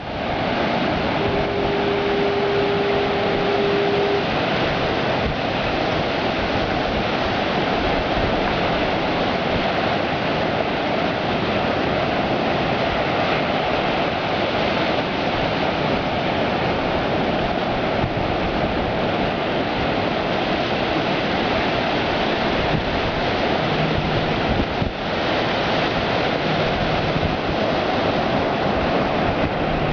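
Ocean surf breaking steadily on the beach. A horn sounds one steady note for about three seconds, starting about a second in, and fainter, lower horn notes come in near the end.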